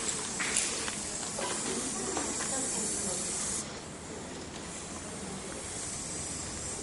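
Aerosol spray-paint can hissing as paint is sprayed onto a wall, with a few short clicks; the spray stops abruptly about halfway through.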